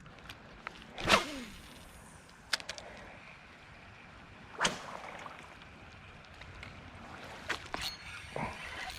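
A fishing rod swishing through a cast about a second in, followed by a few short sharp sounds at irregular intervals over a quiet creek background.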